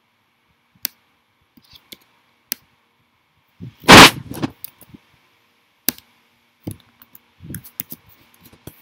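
Scattered sharp clicks of computer keys and mouse buttons, and one loud thump about four seconds in.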